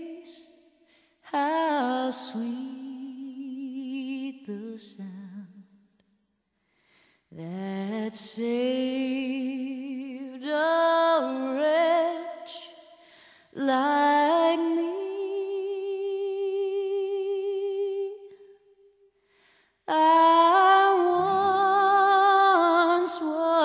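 A solo voice singing slowly with no accompaniment, in long wavering phrases separated by short pauses, with one note held for several seconds past the middle.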